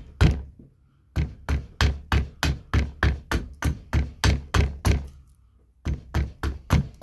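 A carving axe making quick, light chops into a green maple spoon blank held on a wooden chopping block, about three strikes a second. There is a short pause a little before the end, then the chops resume.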